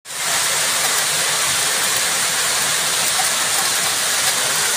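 A heavy hailstorm with a downpour: a dense, steady hiss of hail and heavy rain pelting down, with faint ticks of hailstones striking.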